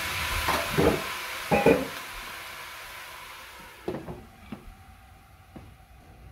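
Rice-and-moong-dal mixture sizzling in a stainless steel pot just after a little water goes in, the sizzle dying away over the first few seconds. Sharp metal clinks about half a second and a second and a half in, then a few lighter knocks around four seconds as the pot is covered with its glass lid.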